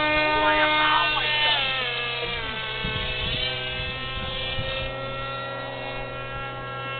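RC model plane's motor and propeller whining steadily. Its pitch drops and then climbs again about one to three seconds in, as the throttle changes.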